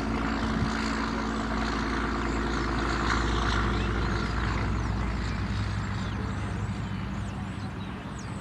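A steady engine drone that swells to its loudest about three seconds in and then slowly fades, its pitch settling lower, with faint bird chirps above it.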